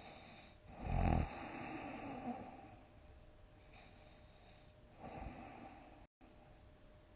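Loud snoring: a strong, rough snore about a second in that tails off over the next two seconds, then a weaker snore about five seconds in.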